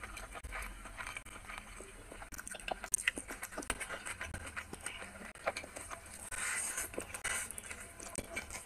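Close-up eating sounds: wet chewing and lip smacks as a mouthful of rice and chicken curry is eaten, with fingers squishing and mixing rice in curry on a glass plate. A denser, hissier stretch of smacking and mixing comes about two-thirds of the way through.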